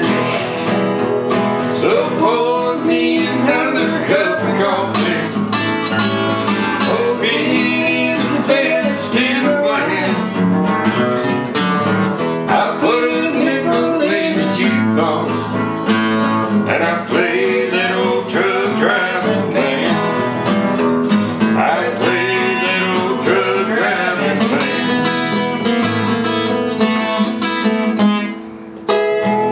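Two acoustic guitars played together, an instrumental tune with busy picked notes over strummed chords.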